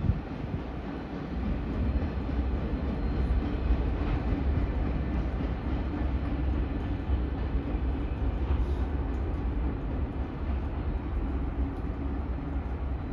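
Freight train of empty flatcars rolling past on the rails: a steady low rumble of wheels and cars.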